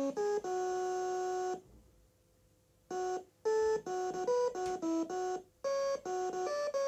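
An Orchestra-90 CC music file playing on a Dragon 64 through its internal 6-bit DAC: a buzzy electronic melody of short stepped notes. One note is held for about a second, then there is a break of just over a second before the quick notes resume.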